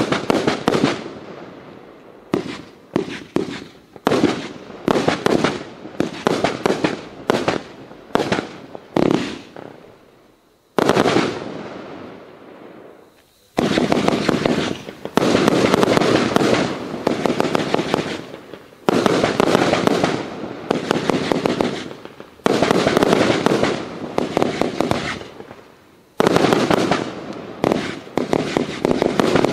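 "The Great Wall" firework cake firing shot after shot, each a sharp bang that trails off. Separate shots come in quick succession at first; a little over ten seconds in, one shot fades slowly, then denser, louder volleys follow in clusters.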